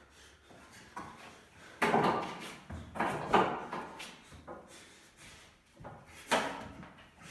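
A wooden frame knocking and scraping against a concrete floor, a few sharp clatters that echo in the bare room, the loudest about two and three and a half seconds in, another near the end.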